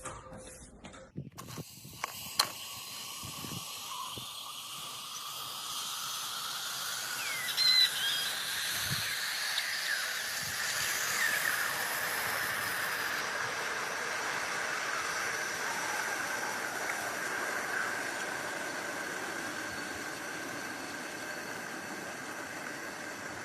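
A steady hiss that sets in about a second in after a few clicks, with a sharp click shortly after and a brief louder burst near eight seconds.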